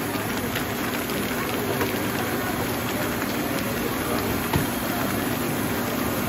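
Steady rushing background noise with one faint knock about four and a half seconds in.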